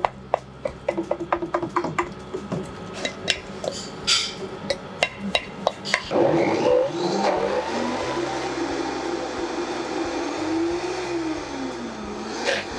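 A spoon scraping and tapping against a steel pan as a thick purée mixture is knocked into a blender jug, then a countertop blender motor starts about halfway through and runs, its pitch wavering up and down as it churns a mixture too thick for it, which needs more liquid.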